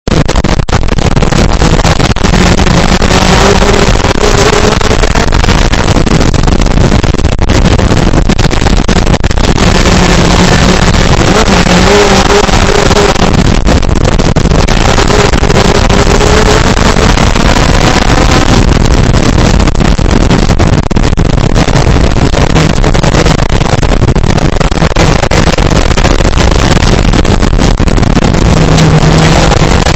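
Rage two-seater off-road buggy engine running hard and very loud, its pitch rising and falling again and again as it revs, over a constant heavy rushing noise.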